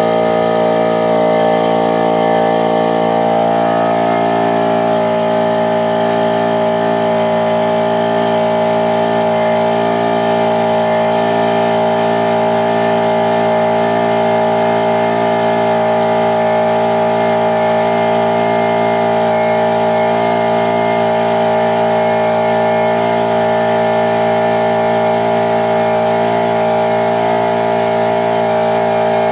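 Small Chinese piston air compressor running steadily under its electric motor, with a constant even hum. Its valves have just been rebuilt, and it now builds up to 8 atmospheres.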